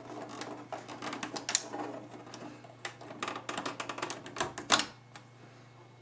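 A quick, irregular run of clicks and clatters from hard parts being handled, loudest about one and a half seconds in and just before five seconds in, then stopping, over a steady low hum.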